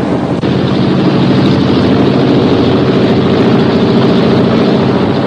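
The four Wright R-1820 Cyclone radial engines of a B-17 Flying Fortress at takeoff power, giving a loud, steady, even drone of engines and propellers as the bomber makes its takeoff roll.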